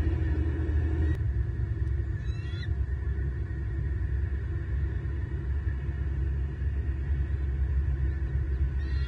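Steady low rumble picked up by the outdoor nest-cam microphone. A short, high, chirping bald eagle call comes about two and a half seconds in, and another near the end.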